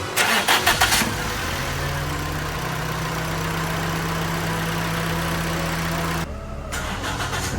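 Toyota Corolla's four-cylinder engine cranked by the starter for about a second, then catching and idling steadily. It runs smoothly, its misfire cured now that water has been cleared from the ignition coils and spark plugs.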